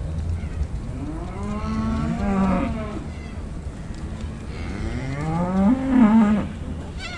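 Young beef cattle mooing twice, two long calls that each rise in pitch; the second, about five seconds in, is the louder.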